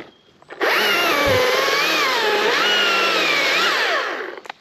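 Chainsaw starting up again about half a second in, its pitch rising and dipping as it is revved and worked, then winding down and stopping near the end.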